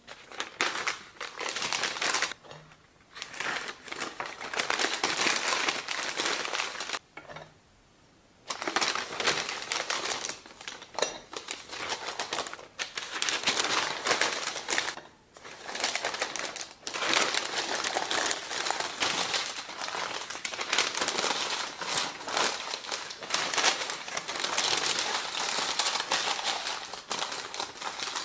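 Sheets of white packing paper crinkling and rustling as ceramic bowls are wrapped in them, in long spells with a few short pauses.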